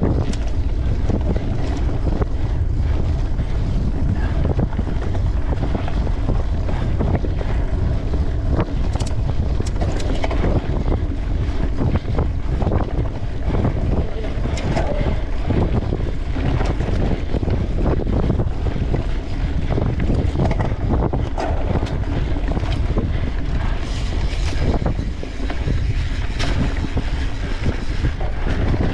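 Wind buffeting the microphone of a camera riding on a mountain bike at race speed: a steady low rumble, broken by many short rattles and knocks from the bike going over rough ground.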